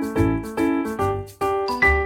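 Background music: a bright keyboard melody over a steady bass beat.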